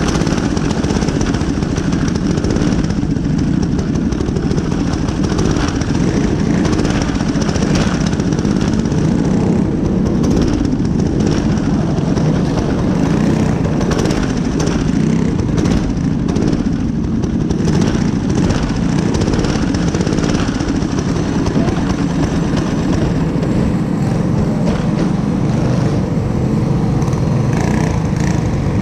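Predator single-cylinder four-stroke kart engine running steadily, heard close up from on board the kart.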